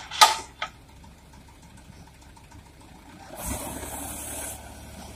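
Hino Dutro dump truck: a loud sharp knock and a smaller one near the start, then about three and a half seconds in the engine comes in with a hiss of about a second and keeps running steadily as the tipping bed starts to lift.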